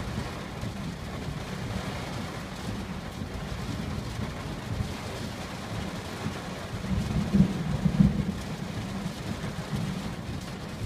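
Heavy rain falling on a car's roof and windshield, heard from inside the cabin as a steady low noise. It swells into a louder low rumble for about a second and a half, a little past the middle.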